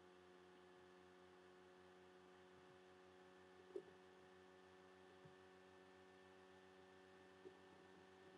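Near silence: a faint, steady electrical hum, with a faint tick about four seconds in and another near the end.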